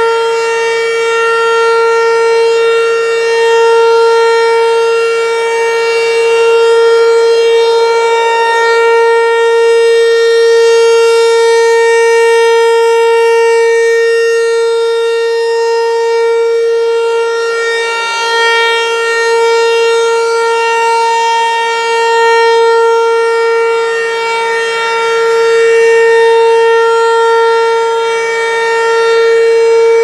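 Federal Signal Equinox electronic outdoor warning siren sounding the full-alert steady tone: one unbroken pitch that swells and fades every several seconds as its rotating horn sweeps toward and away.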